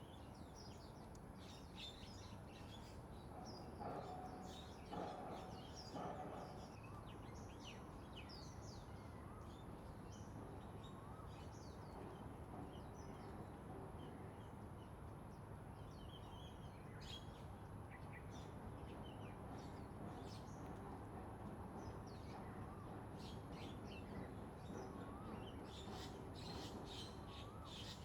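Birds chirping and calling in many short, high notes scattered throughout, over a faint steady background noise and a thin, steady high-pitched tone. A few louder short sounds come about four to six seconds in.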